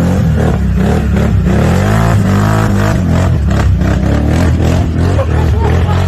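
ATV engine running and revving up and down as it is ridden off-road, with repeated knocks and clatter.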